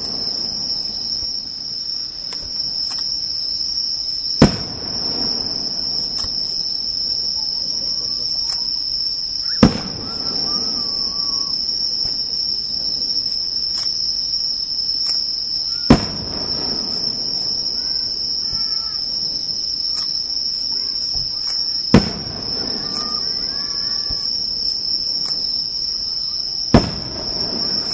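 Aerial firework shells bursting, five sharp bangs about every five to six seconds, each followed by a low rolling rumble. Insects chirr steadily and high-pitched underneath.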